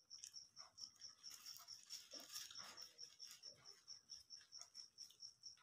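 Faint, steady chirping of a cricket, about five pulses a second. From about a second in, a couple of seconds of paper-wrapper rustling and chewing as a paper-wrapped chicken shawarma is handled and eaten.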